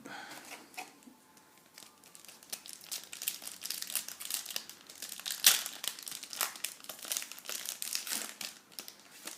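Plastic wrapper of a basketball trading-card pack being torn open and crinkled by hand: a dense run of sharp crackles, loudest about five and a half seconds in.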